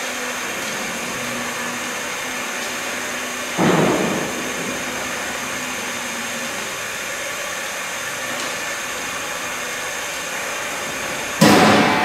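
Vertical external-nozzle vacuum sealer's pump running steadily, drawing the air out of a large bag clamped at its nozzle. A short rush of air comes about three and a half seconds in, and a louder sudden rush near the end.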